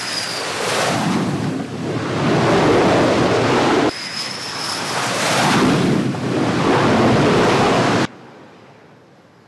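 Twin turbofan jet engines of an F/A-18 Super Hornet on landing approach, a loud roar with a high whine on top that swells as the jet comes in. It cuts off about four seconds in, builds again the same way, and stops abruptly near the end, leaving only faint hiss.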